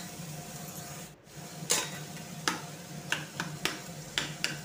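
Steel potato masher knocking and scraping against a stainless-steel bowl as a boiled potato is mashed, in a run of sharp knocks about three a second starting about a second and a half in.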